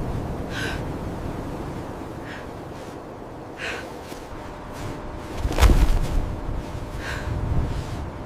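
A person breathing hard in short, separate breaths every second or two over a steady low rumble, with a heavier thud about five and a half seconds in.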